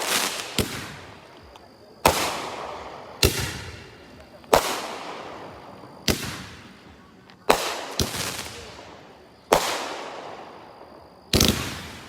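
Red Apple Iron Tiger consumer firework cake firing aerial shots: about ten sharp bangs, one every second or so, each trailing off in a fading hiss from the go-getter stars it throws out.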